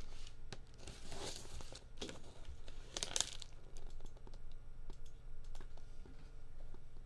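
Plastic wrapping of a trading-card box being torn open and crinkled: two noisy rips, about a second and three seconds in, followed by light clicks of handling.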